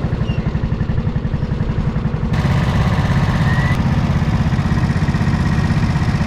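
Go-kart engines idling with a steady, rapid putter, the karts stopped in the pit lane.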